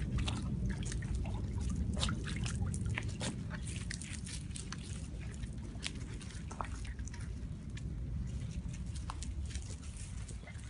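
Puppies lapping and splashing water in a plastic basin, with paws scuffling on gravel: a run of quick wet clicks and drips, thick in the first few seconds and thinning out later, over a steady low rumble.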